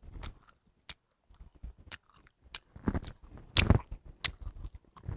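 Eating at close range: chewing with a scatter of short, sharp clicks and crunches, the loudest cluster a little past three and a half seconds in.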